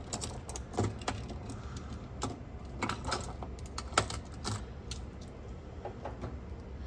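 Irregular small clicks and light taps from fingers handling a cassette deck's small tape-guide roller and its metal arm, over a low steady hum.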